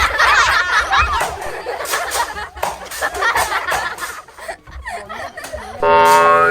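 People laughing, snickering and squealing, with scattered sharp clicks and knocks. About six seconds in, a loud, steady held tone starts.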